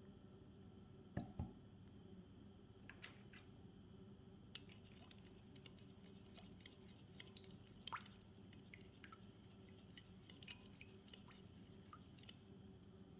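Quiet kitchen handling sounds: two soft knocks about a second in, then scattered light clicks and taps and a small clink, over a faint steady hum.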